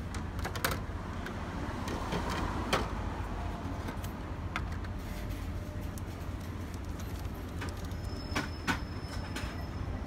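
Shop ambience: a steady low hum with a few light clicks and knocks scattered through, the sharpest near the start, about three seconds in, and twice near the end.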